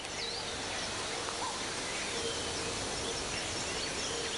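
Woodland ambience: a steady hiss with faint, scattered bird chirps and a thin, steady hum underneath.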